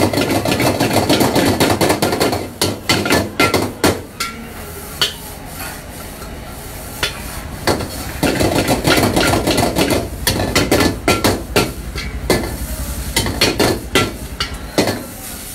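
A metal ladle repeatedly strikes and scrapes against a wok while rice is stir-fried, in rapid, uneven clangs with the rasp of the rice being tossed between them.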